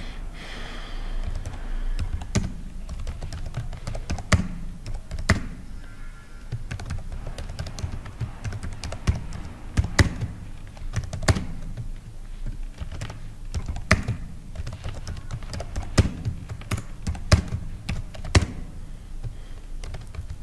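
Typing on a computer keyboard: a run of irregular key clicks, some struck harder than others.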